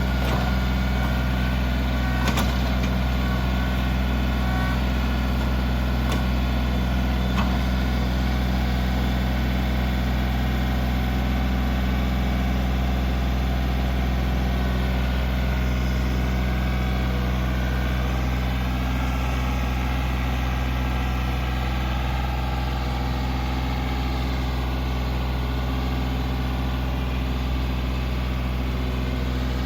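John Deere 2032R compact tractor's three-cylinder diesel engine running steadily, with a few sharp clicks in the first several seconds.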